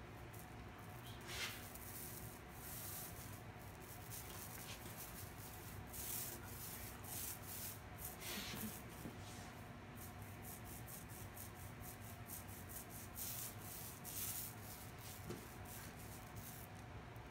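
Small paint roller rolling enamel paint onto a metal drawer face: a faint, irregular swishing rub with each back-and-forth stroke.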